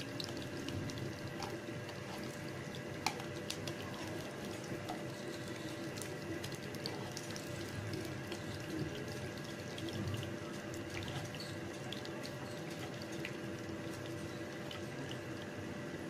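Pieces of fish frying in hot oil in a pan: a steady sizzle with many small crackles and pops.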